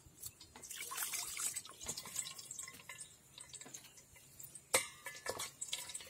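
Water poured from a small clay cup onto ground herb paste in a cloth-lined plastic strainer, trickling and dripping through into a steel bowl below, as the paste is strained. A single sharp knock about three-quarters of the way through.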